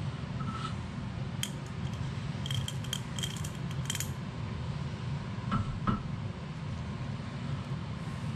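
Light metallic clinks of steel gear parts handled together: a differential pinion gear with its tapered bearing and small races or sleeves, several ringing clicks followed by two sharper knocks. A steady low hum runs underneath.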